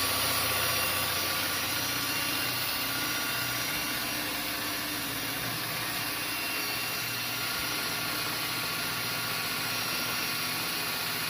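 Electric drill running steadily under load with an 11/16-inch bit, boring a hole through a parking brake lock.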